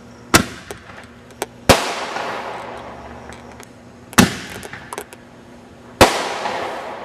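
Aerial fireworks going off: four loud sharp bangs one to two seconds apart and one smaller pop. Each bang dies away in a long echoing tail.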